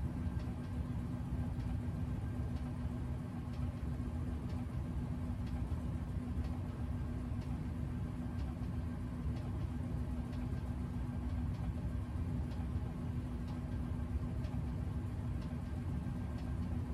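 Access Plate vibration platform running with a person standing on it: a steady motor hum at one constant pitch, with a few faint ticks.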